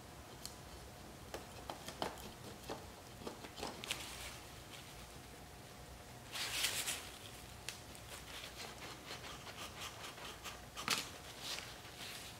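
Light handling sounds of a 3D-printed plastic sword handle on an umbrella shaft being turned: scattered small clicks and rubs, a brief rustle about six and a half seconds in, and a sharper knock near the end.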